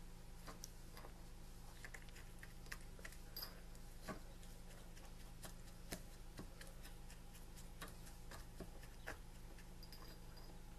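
Faint, irregular light clicks and taps as fingers and a thin wire push a string fuse down into ground match-head mix in a ceramic egg cup. A steady low hum runs underneath.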